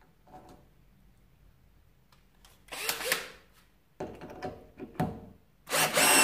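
Parkside PBSA 20-Li A1 cordless drill-driver driving a screw. There is a short burst about three seconds in and a few brief clicks, then the motor runs loud and steady with a whine near the end.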